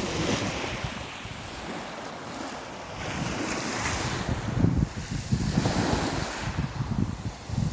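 Sea waves washing on the shore, swelling and falling away every few seconds, with wind buffeting the microphone.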